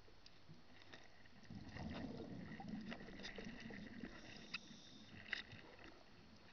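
Underwater ambience picked up through a camera housing. A low bubbling rumble starts about a second and a half in and lasts around two seconds, with scattered sharp clicks and crackles over it.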